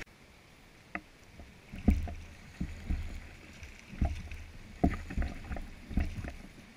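Paddling a fishing kayak on a river: the paddle working through the water stroke after stroke, with short low thumps about once a second.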